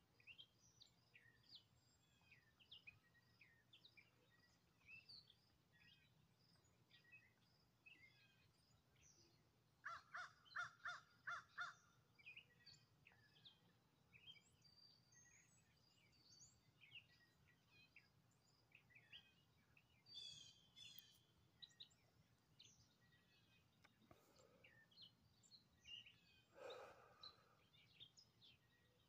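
Faint birdsong: many short high chirps from several birds, with a louder run of about seven quick, harsh repeated calls about ten seconds in.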